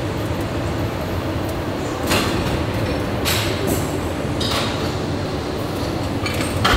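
A Hammer Strength plate-loaded chest press is worked through a set of reps over a steady low gym hum. Four short hissing rushes come about a second apart.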